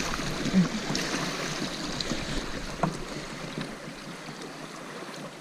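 Water rushing and lapping along the hull of a pedal-drive fishing kayak under way, with wind on the microphone. A low thump sounds about half a second in, the loudest moment, and a light click near three seconds.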